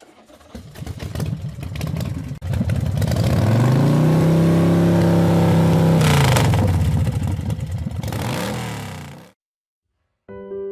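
Kawasaki Z900RS inline-four motorcycle engine being revved: the pitch climbs about three seconds in, holds high for a few seconds, then falls back, with one more short rev before the sound cuts off suddenly.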